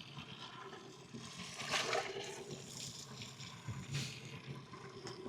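Water lapping and splashing softly against the hull of a small drifting boat on a calm sea, with a couple of slightly louder splashes about two and four seconds in.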